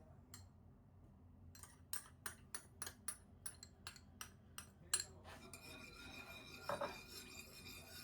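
Kitchen utensils at work: a run of sharp taps or clicks, about three a second, followed by a steady scraping, rubbing sound.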